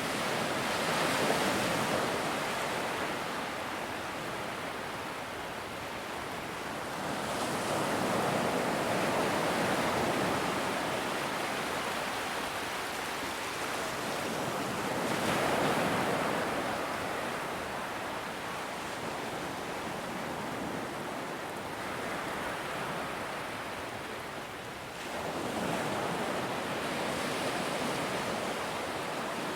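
Large ocean waves breaking on a beach: a continuous wash of surf that swells four times as waves crash and rush up the sand, every six to ten seconds.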